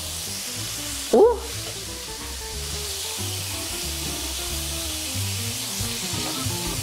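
Floured fish and prawns deep-frying in a pan of hot oil: a steady sizzle throughout. Background music plays underneath, and there is a brief voice sound about a second in.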